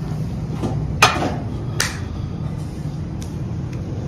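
Two sharp knocks of hard objects set down on a table, about a second in and again just under a second later, with a few fainter ticks afterwards, over a steady low background rumble.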